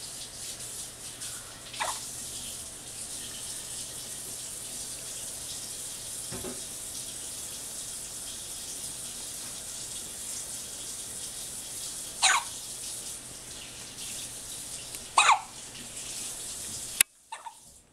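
A baby hiccuping, four short hiccups a few seconds apart, the second one fainter. Under them is a steady hissing noise that cuts off suddenly near the end.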